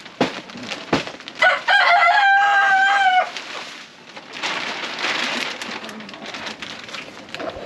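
A rooster crows once, a long call of nearly two seconds starting about a second and a half in, its pitch held and then dropping slightly at the end. Later, wood shavings pour and a plastic bedding bag rustles as it is shaken out.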